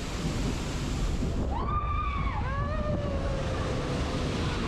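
Splash Mountain log flume boat rushing down a short drop and splashing through churning water, with steady rushing water and wind on the microphone. Partway through, a rider's voice cries out in a few falling-pitched whoops, the last one longer and sliding slowly down.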